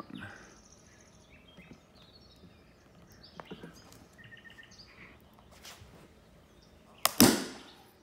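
Hard plastic Beckett (BGS) graded-card case being squeezed at the corner with pliers under a cloth until it cracks open: a few seconds of quiet, then one sudden loud snap a little after seven seconds in that fades within half a second. It was a tough crack, but the case split cleanly.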